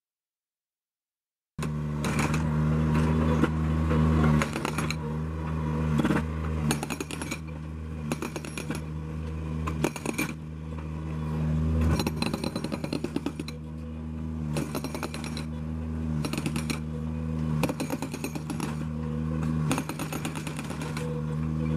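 Soosan SQ20 hydraulic breaker on a Bobcat S70 skid steer hammering a concrete slab in short bursts of rapid blows, over the steady running of the skid steer's engine. The sound starts suddenly about a second and a half in.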